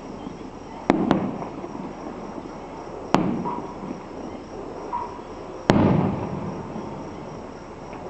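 Fireworks bursting: sharp bangs, each followed by a rumbling echo that dies away. A close pair comes about a second in, another near three seconds, and the loudest near six seconds.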